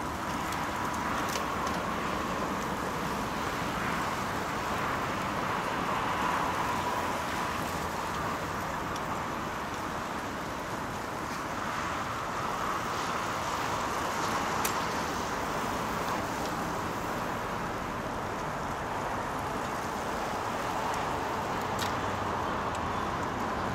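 Steady outdoor road noise from traffic and a long column of bicycles rolling past on tarmac, with a few sharp clicks.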